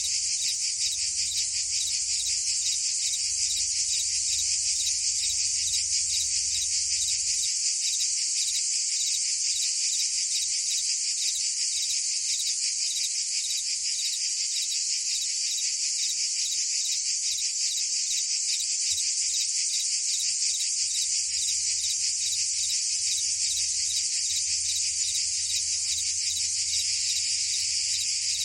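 Dense chorus of cicadas and crickets: a steady, high-pitched trill with a fast, even pulse that never lets up.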